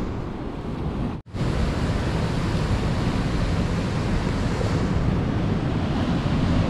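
Ocean surf breaking and washing over rocks, with wind buffeting the microphone. The sound cuts out for an instant about a second in.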